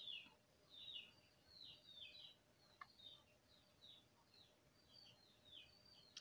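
Faint, quick chirps of a small bird, about two a second, each a short falling note, over a faint steady hum; a single light click about three seconds in.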